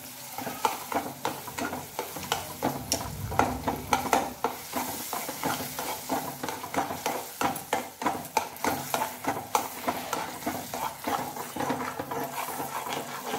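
Flat spatula scraping and knocking repeatedly against a metal kadai as it stirs hot caramelised sugar syrup to mix in butter, over a light sizzle from the syrup. The strokes come quickly and irregularly; the syrup is kept moving so it does not catch on the bottom.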